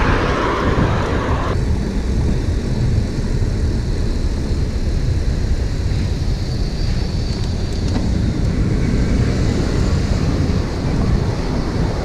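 Wind rumbling on the microphone of a camera on a moving bicycle, mixed with passing car traffic. The sound changes abruptly about a second and a half in, and the upper range drops away.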